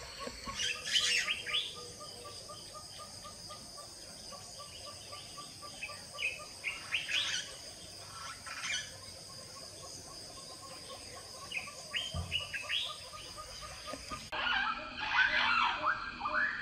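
Birds chirping in short bursts over a steady, high-pitched insect drone and a fast, even run of repeated notes. About 14 seconds in, the sound changes abruptly and a louder burst of chirping follows.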